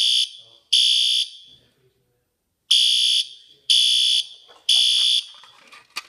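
Fire alarm horn strobe sounding in the temporal-three evacuation pattern: half-second horn blasts, three to a group with a pause of about a second and a half between groups, after being set off from a pull station.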